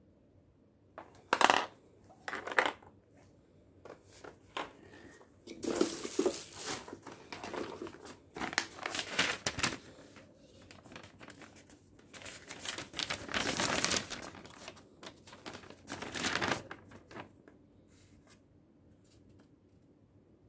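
Paper instruction manual being pulled out and unfolded, rustling and crinkling in several spells. A couple of sharp knocks sound near the start as the plastic parts of the steam mop are handled.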